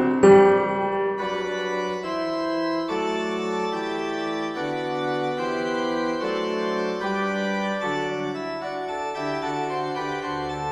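Background music: sustained organ-like keyboard chords changing every second or so.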